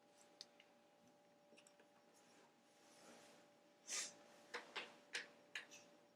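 Faint clicks and taps of a small screwdriver and screws while laptop hinges are being unscrewed. About four seconds in there is a short scrape, followed by a quick run of four or five sharp clicks.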